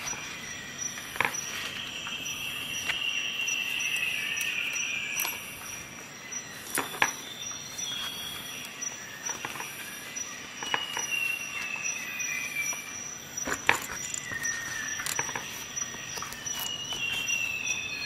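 Metal multi-tool and screwdriver bits clicking and knocking as they are handled in and out of a nylon pouch, with sharp clicks about a second in, about seven seconds in and near fourteen seconds. Behind them run a steady high tone and a few long high tones that fall slowly in pitch.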